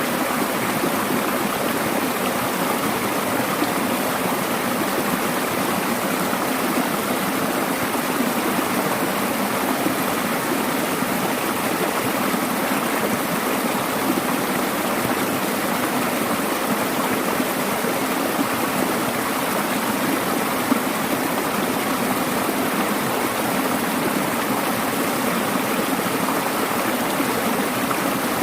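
Mountain valley stream rushing steadily over rocks, a constant even splashing and flowing.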